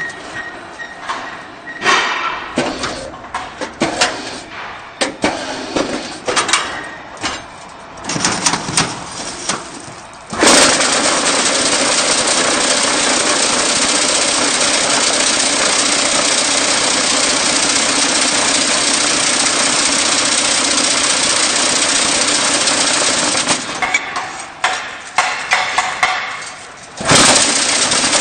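QT4-26 concrete block making machine running through its cycle. First comes irregular mechanical clanking and knocking. About ten seconds in, a loud, steady vibrating drone starts as the mould's vibration compacts the concrete, and it runs for about thirteen seconds. Clanking follows, and the drone starts again near the end.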